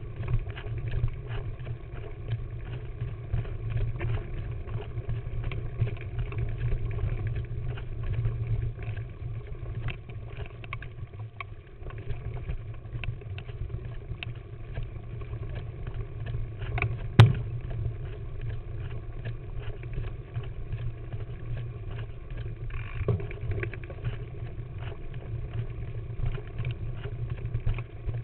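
Mountain bike riding down a rough dirt singletrack, heard from a camera mounted on the bike: a steady low rumble from the tyres and frame with constant small rattles and clicks from the bike shaking over the ground. One sharp knock sounds about 17 seconds in.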